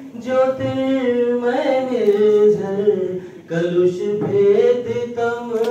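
A man's voice singing a slow devotional invocation, holding long notes and gliding between them, with a short pause about three and a half seconds in.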